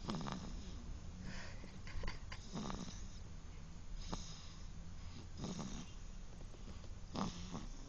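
Regular snoring of a sleeper, one short breathy snore about every one to one and a half seconds.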